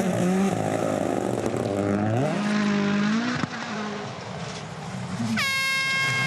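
Rally car engine revving up and down through gear changes, with a sharp crack about halfway through. Near the end a steady high-pitched tone sets in, gliding down in pitch as it starts.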